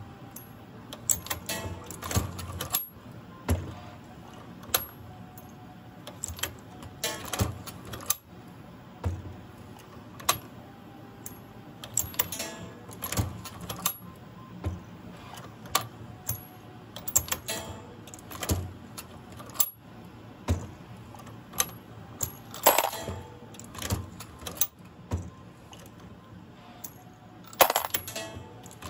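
Lee Pro 6000 progressive reloading press being cycled: brass rifle cases clinking and rattling as they drop through the case feed and shuttle onto the shellplate, with metal clicks and clacks every second or two and two louder clattering clanks near the end. Background music plays underneath.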